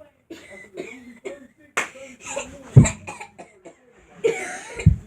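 A boy coughing over and over in short, choppy bursts, with vocal noises in between. There are two heavy thumps: one a little under three seconds in, and a louder one near the end.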